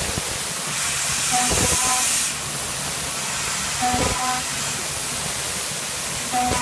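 CNC milling machine running with a steady hiss. The hiss turns louder and brighter about a second in for a second or so, and brief tones sound twice.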